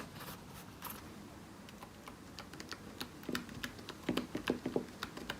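Keys of a mini keyboard being typed on: a few scattered key clicks at first, then a quick run of keystrokes from about four seconds in.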